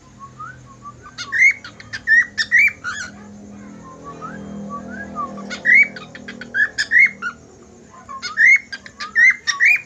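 Cockatiel whistling its song: three phrases of quick rising whistles broken by sharp clicks, with softer rising notes in between.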